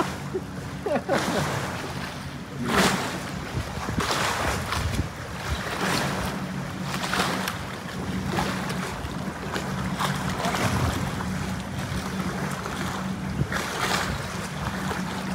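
Wind buffeting the microphone and water washing in, in swells every second or so, over a steady low engine drone that grows louder about six seconds in.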